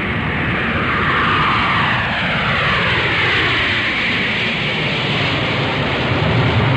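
Airplane sound effect: a steady rush of aircraft engine noise whose tone slides slowly down in pitch, with the low rumble growing louder near the end.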